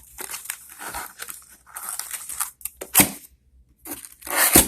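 Packaging on a computer's box being torn and crinkled open: scratchy rustling, with two louder rips about three seconds in and near the end.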